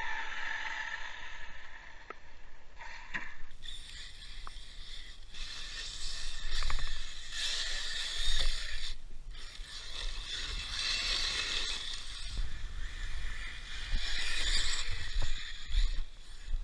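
Brushless electric RC truck driving hard on loose gravel: its motor and drivetrain whine, surging and easing off several times with throttle, over tyre crunch, scattered knocks and a low wind rumble on the microphone.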